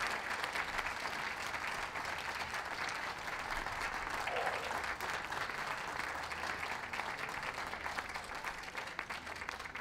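Ringside audience applauding: many hands clapping steadily.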